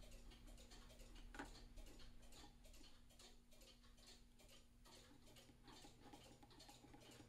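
Near silence: a faint steady hum with faint, regular ticking.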